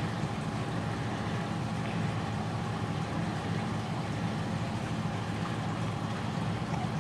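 A steady low mechanical hum, even throughout, with a faint thin tone above it. No other sound stands out.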